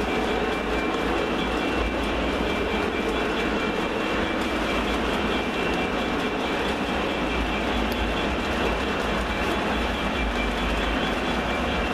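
O scale model intermodal train, its double-stack container cars and trailer flatcars rolling past on the track with a steady, even rumble of wheels on rails.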